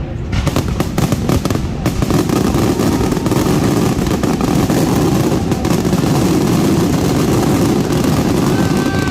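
Fireworks going off in rapid succession: many sharp bangs and crackles, which after about two seconds merge into a continuous rumbling barrage.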